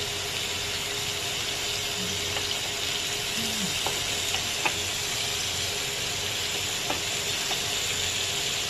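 Shrimp sizzling on a hot ridged grill pan, a steady frying hiss, with a few light clicks of metal tongs against the pan as the shrimp are turned over.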